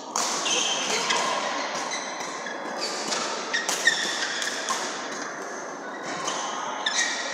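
Badminton doubles rally: rackets striking the shuttlecock again and again, mixed with sneakers squeaking on the court floor. The loudest hit comes about four seconds in.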